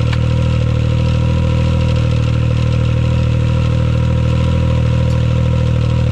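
Can-Am Maverick X3's turbocharged three-cylinder engine idling steadily, just fired up after a new STM primary clutch was fitted.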